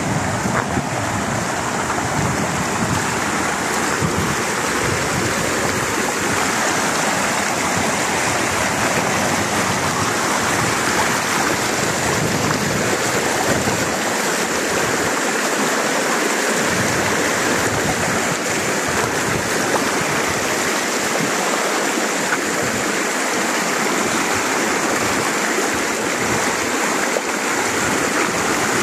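Shallow river water rushing and splashing over cobbles and stones, a steady, even noise.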